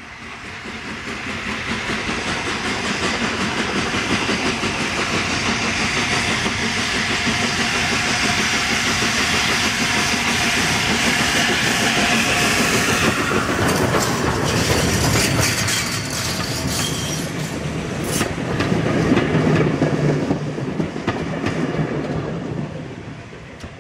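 Peppercorn A1 steam locomotive No. 60163 Tornado, a three-cylinder Pacific, running past with its train of coaches: the sound swells in the first couple of seconds and stays loud until the engine passes, about halfway through. The coaches follow with wheels clicking over the rail joints, and the sound fades near the end.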